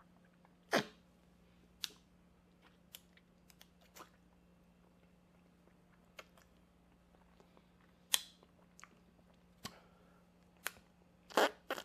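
Someone eating a vodka gelatin shot from a glass shot glass: scattered short mouth sounds, slurps and smacks, the louder ones about a second in, near eight seconds and near the end. A faint steady hum runs underneath.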